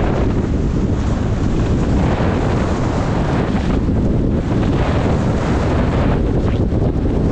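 Steady wind buffeting the microphone of a camera carried by a skier moving downhill, the air rushing past at skiing speed.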